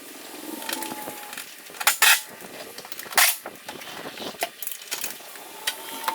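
Clattering and knocking of metal tools and parts during hands-on work on a pickup, with two short loud bursts of noise about a second apart near the middle.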